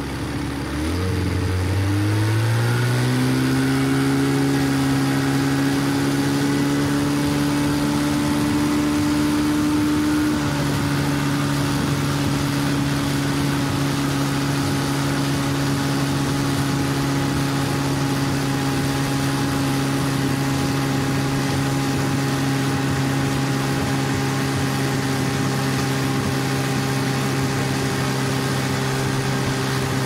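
A 15 hp boat motor heard from on board, picking up speed about a second in as the throttle opens, then running at a steady speed.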